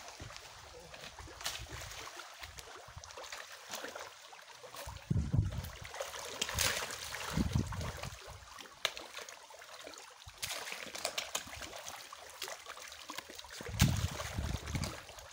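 Pond water splashing and churning as catfish thrash at the surface in a feeding frenzy, with louder bursts now and then.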